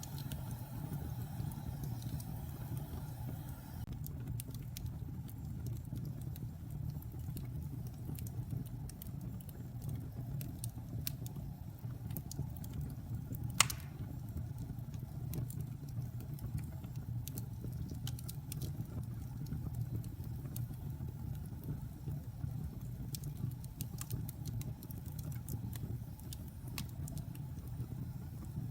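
A fire burning: a steady low roar with scattered small crackles and one loud pop about halfway through.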